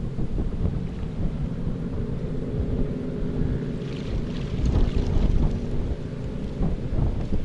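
Strong typhoon-approach wind buffeting the microphone as a loud, low rumble, with rough water, and a few brief higher rustles or splashes about four to five seconds in.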